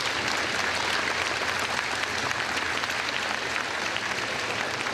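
An audience applauding steadily, a dense patter of many hands clapping.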